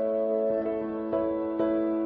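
Soft, slow instrumental background music: held tones with a gentle new note about every half second.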